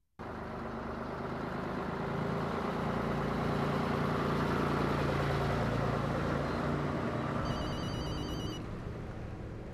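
A red London double-decker bus's diesel engine running, growing louder to a peak midway and then easing off. Near the end a phone rings for about a second with a pulsed electronic trill.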